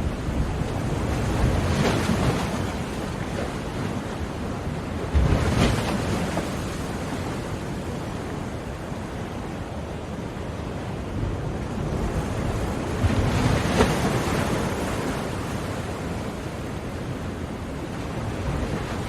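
Ocean surf: a continuous wash of breaking waves, with louder breakers about 2, 5 and 13 seconds in.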